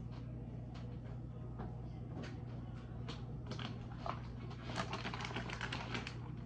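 Small handling noises of things being moved and worked at a stove: scattered clicks and taps over a steady low hum, with a quick run of crackling ticks a little before five seconds in that lasts about a second and a half.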